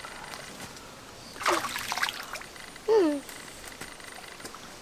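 A stream trickling steadily, with a rustle of leafy branches being pulled about a second and a half in and a short voice sound falling in pitch near three seconds.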